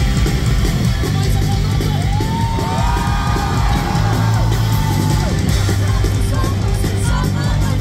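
Rock band playing live through a festival PA: electric guitars, bass and drums, loud and steady, with a voice yelling over the music through the middle.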